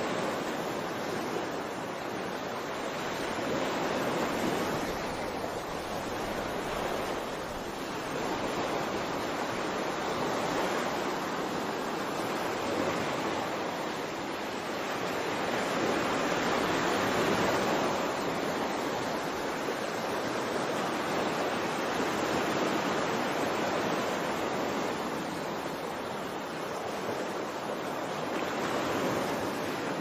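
Ocean surf: a steady rush of waves that swells and eases every several seconds.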